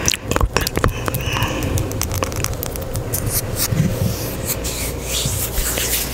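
Hands moving and rubbing together close to a sensitive ASMR microphone: a dry swishing and scraping of skin on skin, with a run of small clicks in the first second or so.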